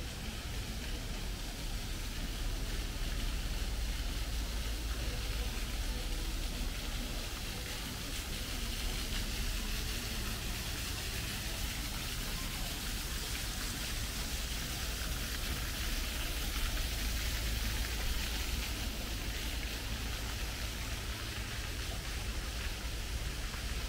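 Steady outdoor city ambience: a constant low rumble with an even hiss over it, and no single sound standing out.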